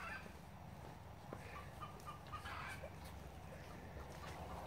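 Faint short animal calls: a quick run of small clucking or squeaking notes about two seconds in, over a steady low background hum.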